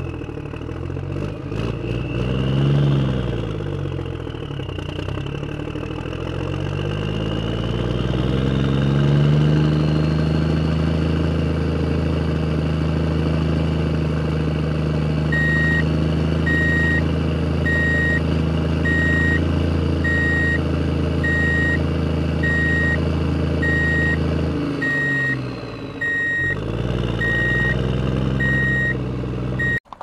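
A heavy vehicle's engine revving up and down, then running steadily, with a reversing alarm beeping steadily from about halfway through. Near the end the engine dips and picks up again before the sound cuts off suddenly.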